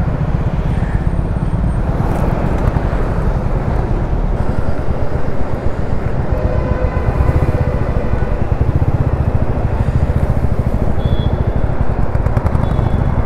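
Royal Enfield Meteor 350's single-cylinder engine running steadily while riding, its firing heard as a rapid low pulse under a steady rush of wind and road noise.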